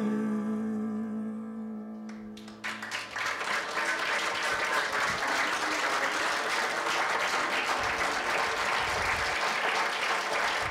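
A woman's voice holds a final sung note over piano, fading out about three seconds in; then an audience applauds.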